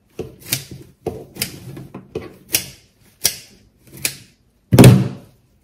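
Scissors snipping through flower stems, a run of short, sharp clicks roughly one every half second to a second, with one louder clunk near the end.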